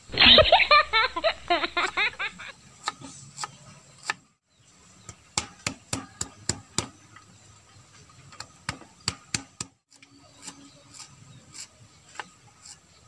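A knife chopping garlic on a thick wooden chopping board: sharp, irregular knocks, coming in quick clusters. It opens with a couple of seconds of a muffled voice.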